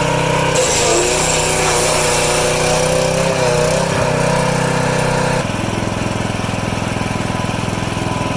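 Wood chipper's engine running steadily, its pitch wavering slightly. About five seconds in, the sound changes abruptly to a lower, evenly pulsing run.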